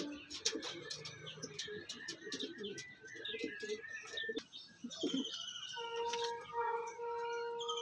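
Domestic pigeons cooing, with some bird chirps; a steady held tone comes in about three quarters of the way through.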